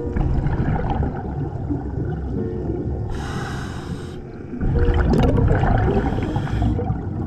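Scuba diver breathing through a regulator underwater: a hiss of inhalation about three seconds in, followed by a longer, louder gurgle of exhaled bubbles.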